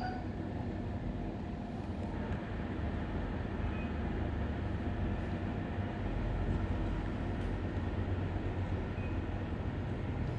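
Indoor unit of a Daikin FTC50NV14 split air conditioner running: a steady low hum and rush of air from its fan, unchanging.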